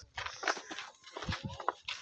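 Footsteps of a person walking on a concrete path, heard as a few irregular thuds.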